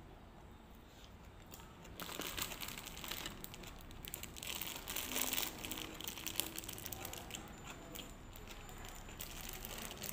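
A thin plastic bag crinkling as it is handled and crumpled in the hands, starting about two seconds in and going on unevenly.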